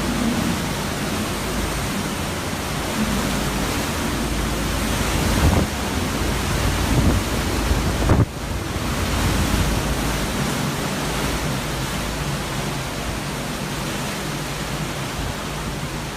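Hurricane-force wind blowing hard and steadily, buffeting the microphone, with a few stronger gusts around the middle, the last one cutting off suddenly.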